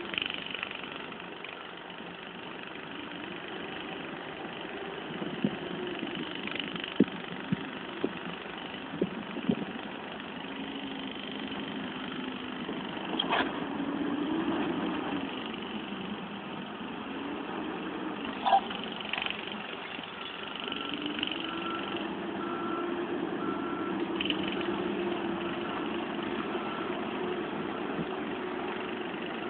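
Caterpillar 442E backhoe loader's diesel engine working under load, its pitch rising and falling, with several sharp knocks a few seconds in as the bucket strikes rubble. About twenty seconds in, a reversing alarm beeps steadily for several seconds.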